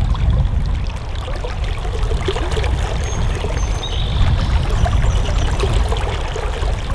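Fast-flowing trout stream running around a wading angler's legs, with scattered small splashes as a hooked trout is brought in by hand.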